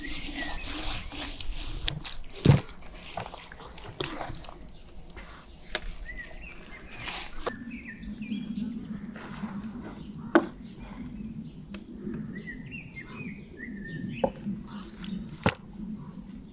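Outdoor sounds: a hiss with many sharp clicks and crackles for about the first seven seconds, then short chirping calls and scattered knocks.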